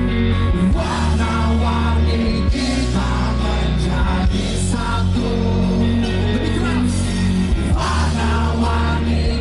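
Rock band playing: electric guitars, bass guitar and drum kit, with a male lead vocal singing over them.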